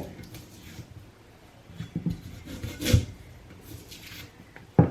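Garlic cloves being peeled by hand: papery skin rubbing and scraping, with a few short knocks, the loudest about three seconds in.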